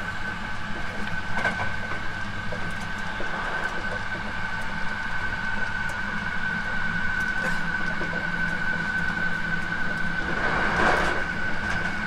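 Hankyu 9300 series electric train running at speed, heard from inside the car: a steady low rumble under a constant high-pitched whine, with a brief louder swell near the end.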